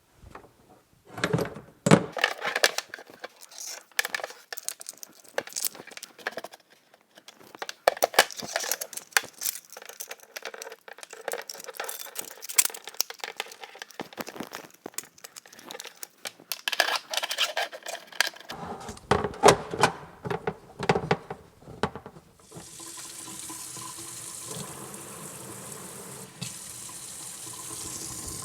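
Irregular knocks and clatter of hard parts being handled at the sink, then from about 22 seconds in a steady rush of water running from a faucet into the sink, the newly fitted faucet being tried out.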